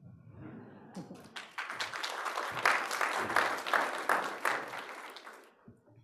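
Audience applause, swelling about a second in and dying away near the end.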